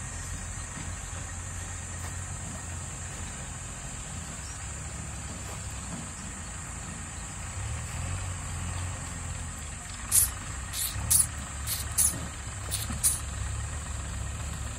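Diesel engine of a JCB 3DX backhoe loader running steadily as the machine drives and turns. A little past the middle comes a quick series of about seven short, sharp high-pitched sounds, louder than the engine.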